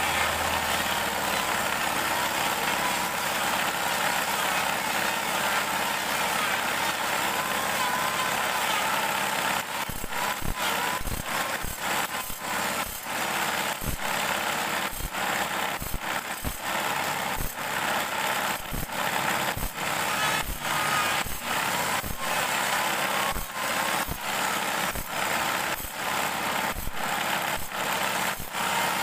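Table saw running while a bandsaw blade is sharpened on it, a steady high grinding hiss. About ten seconds in, the sound starts breaking off briefly in an even rhythm, roughly every two-thirds of a second.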